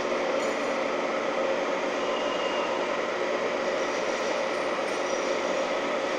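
Holzmann ED 1000 metal lathe running at 770 rpm, turning a steel bar, with a steady even hum at a fixed pitch.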